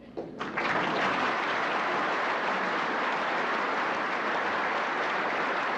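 Large audience applauding: dense clapping that comes in about half a second in and holds steady.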